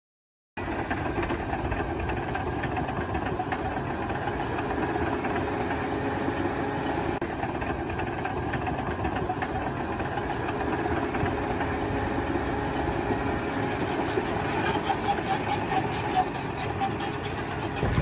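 An engine running steadily, cutting in abruptly after a brief silence; rapid clicking or rattling joins in during the last few seconds.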